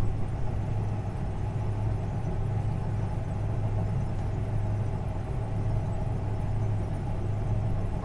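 Combine harvester running steadily with its separator engaged at low RPM, heard from inside the cab as an even, low drone with a faint steady whine above it. The belts and chains are being warmed up in the bitter cold before harvesting.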